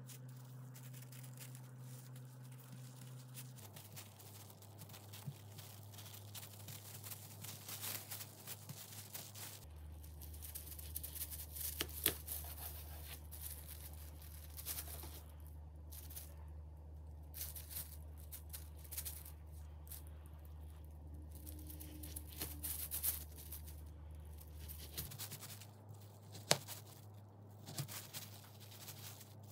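Light rustling and scattered clicks and taps, as of things being handled, over a low steady hum that shifts pitch a few times.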